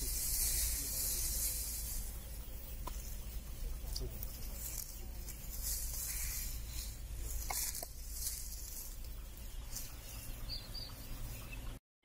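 Steady hissing rustle of footsteps shuffling through dry litter in a poultry shed, with faint scattered ticks over a low steady hum.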